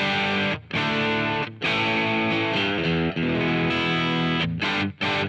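Electric guitar (a Fano Omnis MG6) played through the Amplitude 5 amp sim on its default setting, fed from an audio interface's high-impedance instrument input: chords strummed and left to ring, broken by a few short stops. This is the reference tone with the pickup matched to a Hi-Z input.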